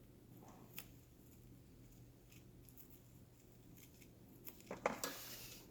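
A faint click, then about five seconds in a short stretch of crackling and tearing as a cut chunk of Kaizen foam is peeled out of its pocket.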